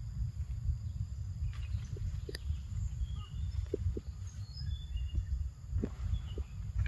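Forest ambience: a steady low rumble, scattered small clicks and snaps, and a few faint, short, high bird chirps in the middle.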